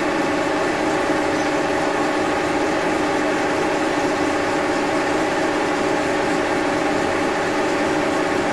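Milling machine running steadily, a constant mechanical hum made of several steady tones.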